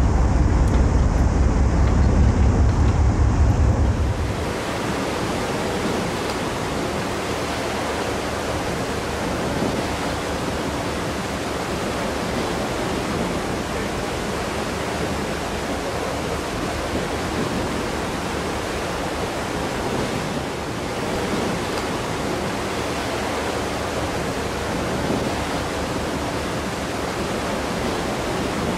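A ferry's deep engine rumble for about the first four seconds. Then an abrupt change to a steady, even rush of wind and sea.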